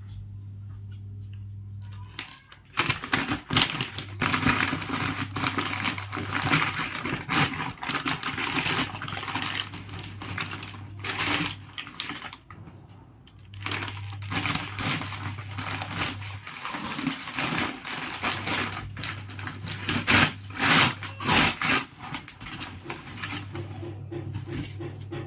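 Shoe box and packaging being handled and opened: irregular rustling and crinkling with sharp clicks and knocks, loudest in a cluster of clicks near the end. A steady low hum comes and goes underneath.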